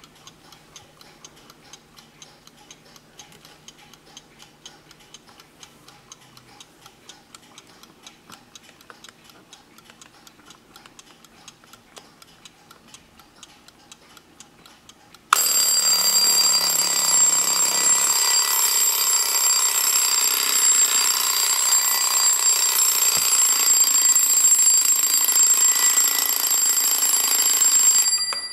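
Vintage Kaiser alarm clock ticking softly, then about halfway through its alarm goes off suddenly, a loud continuous ringing that runs for about thirteen seconds and then stops just before the end.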